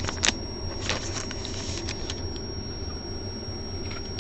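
Trading cards being handled: a few light clicks and rustles in the first second, then only a steady low hum with a faint constant high whine.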